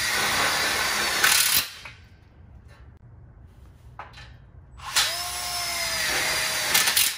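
Cordless drill driving screws into a metal frame tube, twice: each run holds a steady motor whine that sinks a little in pitch as the screw goes in, then ends in a short louder burst. There is a gap of about three seconds between the two runs.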